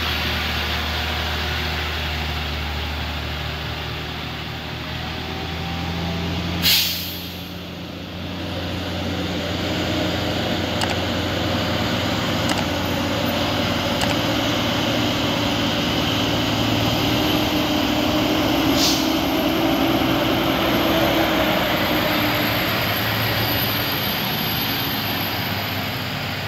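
Loaded Ashok Leyland truck's diesel engine running, with a sharp air-brake hiss about seven seconds in, after which the engine hum drops back; a second, shorter hiss comes later.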